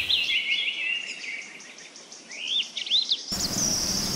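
Small birds chirping in quick repeated calls, with an insect's high, rapidly pulsing trill behind them.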